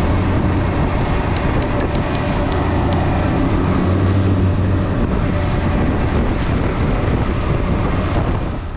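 Offshore fishing boat under way: a steady engine hum with wind and water rushing over it. A short run of faint ticks comes about one to three seconds in.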